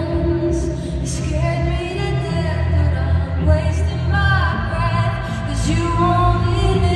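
Live pop music in a large arena: a woman singing held, sliding notes into a microphone over the band, amplified through the PA, with a heavy bass underneath.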